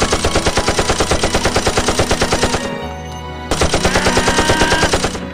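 Machine-gun fire sound effect: two long bursts of rapid automatic shots, about ten a second, the first lasting nearly three seconds, then a short break and a second burst of under two seconds, over background music.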